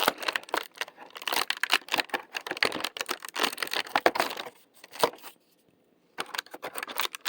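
Cardboard advent-calendar door being torn open and the fidget toy inside unwrapped: a dense run of crinkling and tearing crackles, with a short pause about five and a half seconds in.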